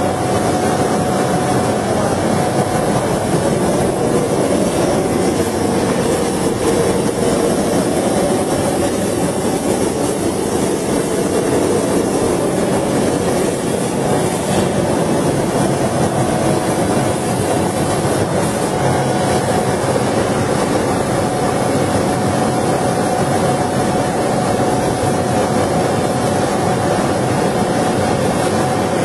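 Conveyor-bed laser cutting machine running while cutting leather: a steady, loud machine noise with one constant hum that does not change.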